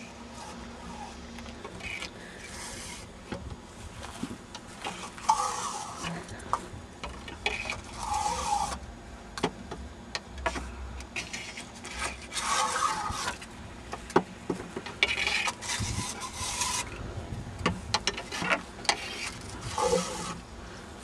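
A wooden stick scraping as it is pushed down into fireworks mortar tubes in a rack, one tube after another: about six or seven rasping strokes, with sharp knocks of wood against the tubes in between.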